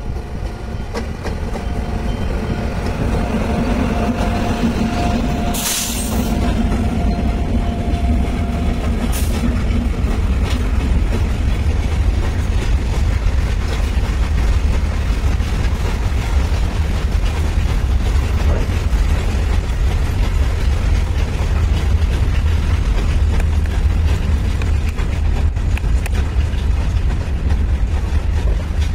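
Heavy electric freight train passing close by: the locomotives' steady hum in the first several seconds, then a long rake of loaded open steel wagons rolling past with a steady low rumble of wheels on rail. There is a sharp clank about six seconds in and a lighter one about three seconds later.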